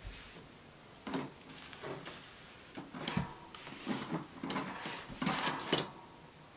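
Handling fabric and a small iron on a padded pressing board: soft rustles of cotton being laid out and smoothed, and light knocks and scrapes as the iron is set down and slid over the seam of a quilt block.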